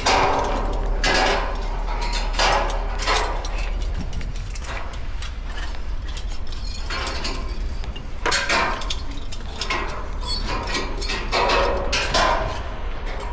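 Irregular metallic clanks and clinks, about one to two a second, from climbing the steel ladder of a construction crane's mast, over a steady low rumble of wind.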